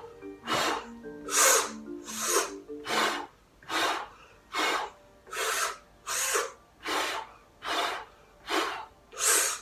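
A woman doing a lung-function breathing exercise: forceful puffs of breath out with puffed cheeks, as if blowing a trumpet, alternating with strained sucks of breath in, as if through a straw, three out and two in. About a dozen hard breaths in an even rhythm, roughly one a second.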